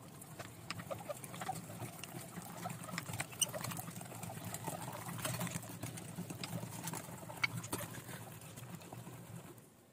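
Meat grinder mincing raw chicken: wet squishing with many small clicks as the meat is forced through. It stops shortly before the end.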